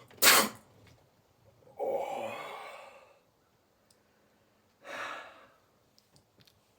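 A person sneezes once, a short sudden burst that is the loudest sound. About two seconds in comes a drawn-out voiced sigh, and near five seconds a shorter breathy exhale.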